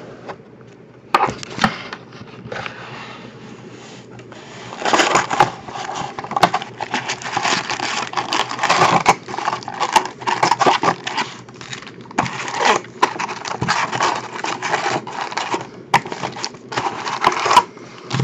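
Foil-wrapped trading card packs and a cardboard hobby box being handled as the packs are pulled out: a run of crinkling and rustling with many sharp clicks, starting with a sharp noise about a second in and growing busy from about five seconds on.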